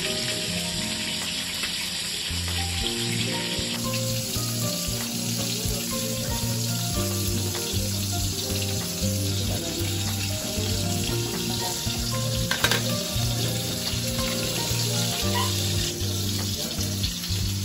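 Sinigang broth bubbling at a rolling boil in a steel pot, a steady bubbling hiss, over background music with a stepping bass line. A single sharp click about two-thirds of the way through.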